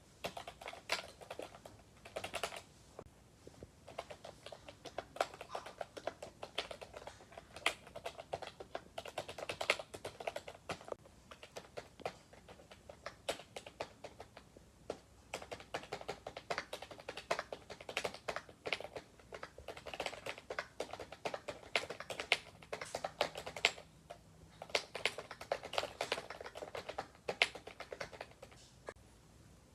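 Typing on a budget wireless computer keyboard: quick runs of light key clicks in bursts, with brief pauses between them, stopping shortly before the end.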